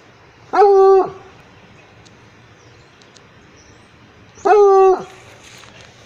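Black-and-tan hound barking twice, about four seconds apart. Each bark is a held, pitched call about half a second long.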